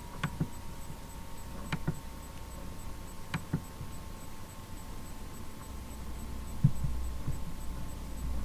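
A computer mouse clicking: a single click just after the start, then two double-clicks about a second and a half apart, over a steady electrical hum.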